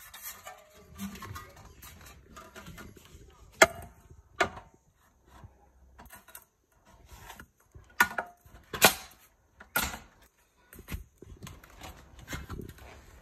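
Metal bars and plastic connector pieces of a roof luggage basket being handled and pushed together: scattered clicks and several sharp knocks, the loudest a little over a third of the way in and again about two-thirds in.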